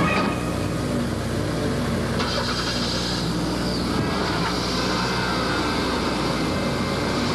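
Car engine running steadily at idle, a low hum; a higher hiss joins about two seconds in.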